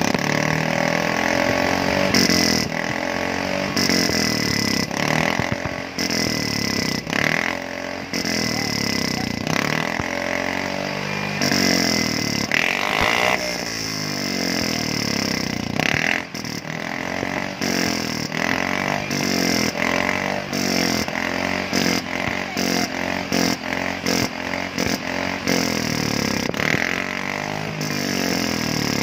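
Yamaha Fino 125 scooter's single-cylinder four-stroke engine revved again and again through a gutted ("bobok") muffler, the exhaust note rising and falling with each blip of the throttle, with quicker short blips in the second half.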